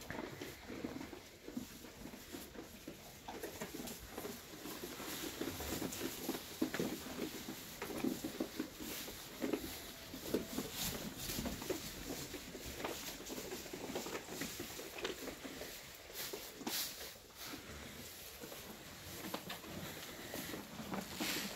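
Young Dorper sheep feeding together at a wooden trough and shuffling on straw bedding: continuous irregular rustling with many small knocks and clicks.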